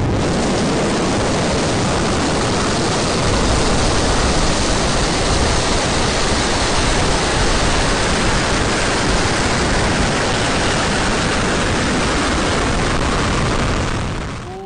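Zhuque-2 rocket lifting off on its four methane-fuelled TQ-12 first-stage engines: loud, steady exhaust noise that starts abruptly, gains a deeper low rumble a few seconds in, and fades near the end.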